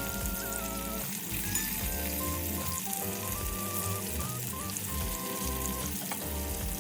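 Food sizzling as it fries in a pan, a steady hiss, with background music playing over it.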